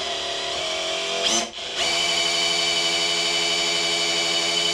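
Power drill spinning the oil pump of an LT1 small-block V8 to prime the oil system and lifters, with a steady motor whine. The whine breaks off briefly about a second and a half in, then runs on steadily.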